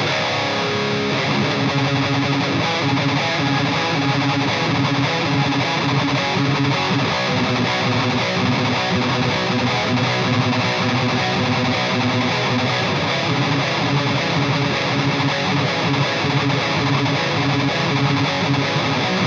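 Distorted electric guitar played continuously through an EVH 5150 III LBX amp head, with the mids turned up full and the presence turned down a bit.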